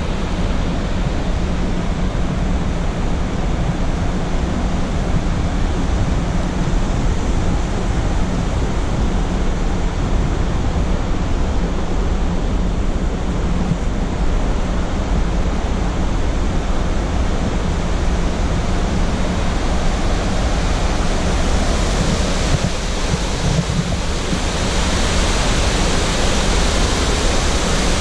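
Steady rushing of the Henrys Fork's rapids and Upper Mesa Falls. The sound turns brighter and hissier about three quarters of the way through as the falls come close.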